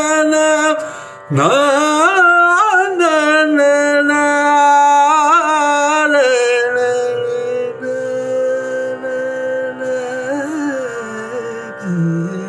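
Male voice singing a phrase in raag Kappi (Peelu), with wavering, ornamented glides in pitch, then settling into a long held note from about six seconds in.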